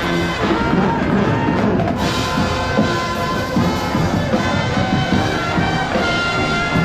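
Music with a drum kit keeping a steady beat under sustained held notes.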